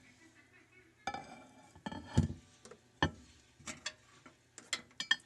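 Something being taken out of a microwave oven: a series of scattered knocks and clinks, the loudest about two seconds in and a quick cluster near the end.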